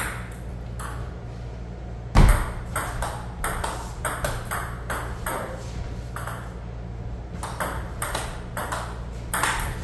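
Table tennis rally: the ball clicks on the STAG table and off the paddles, about two hits a second. One heavy thump comes about two seconds in. A steady low hum runs underneath.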